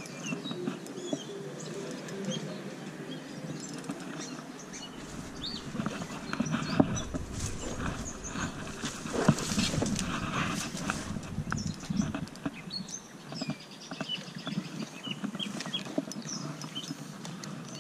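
Irregular rustling, scuffing and knocks from an angler moving about on a creek bank while handling a spinning rod, picked up close on a chest-mounted camera. It is busiest and loudest in the middle stretch.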